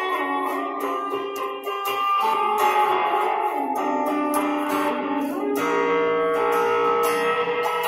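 Music on a plucked string instrument, strummed and picked chords that change every second or so.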